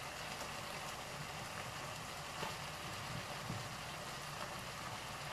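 Pork and tomato sauce simmering and sizzling steadily in a wok, with a few soft plops as chunks of eggplant are dropped into the pan.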